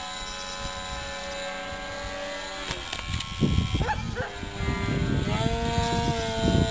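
Electric motor and propeller of a model aerobatic airplane whining in flight, a steady set of tones that drops in pitch a little past halfway and then holds as the throttle changes. From about halfway, louder rough bursts with short swooping tones come in over it.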